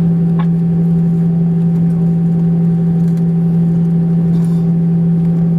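Steady mechanical drone with a strong low hum and a few fainter steady tones above it, holding an even level throughout, with a couple of faint clicks.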